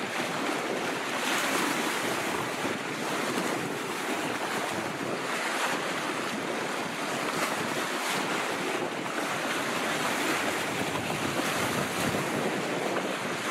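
Wind-driven lake waves lapping and splashing against a rocky shoreline in irregular surges, with wind gusting across the microphone.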